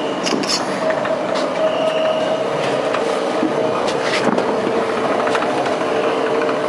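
Instant noodle production line machinery running, with the noodle conveyors giving a steady mechanical din, two steady humming tones, and a few scattered clicks.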